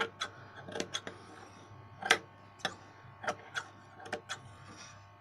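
Tailor's scissors snipping through the seam allowance of a stitched fabric pocket, a string of sharp snips at uneven intervals, the loudest about two seconds in: trimming and clipping the corners before the pocket is turned right side out.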